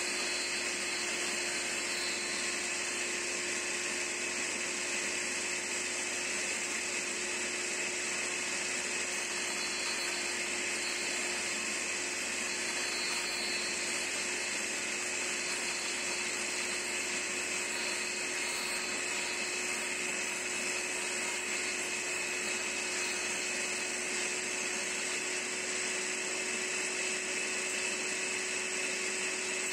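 Table saw running steadily with a constant whine, its barely raised blade shaving the end of an oak broom handle as the handle is turned slowly by hand to cut a round tenon.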